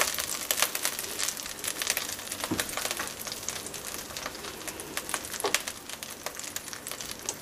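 Hot frying pan sizzling and crackling steadily, with scattered sharper pops.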